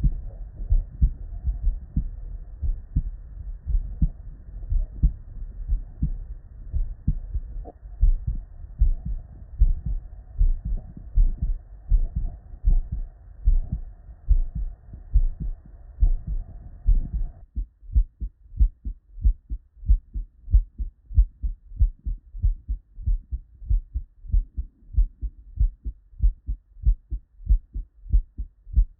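Normal human heart sounds heard through a stethoscope: a steady lub-dub of the first and second heart sounds, beat after beat. About two-thirds of the way in, the recording changes: the background hiss drops away and the beats sound cleaner and sharper.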